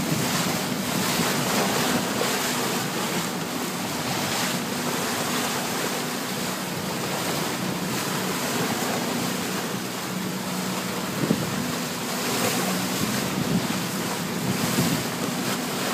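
Bow wave rushing and splashing along the hull of a boat under way, with wind buffeting the microphone and a steady low engine hum underneath. One short knock about eleven seconds in.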